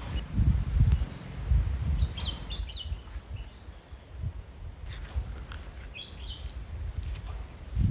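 A bird calling in short chirped phrases, once about two seconds in and again about six seconds in, over a low rumble that is loudest at the start.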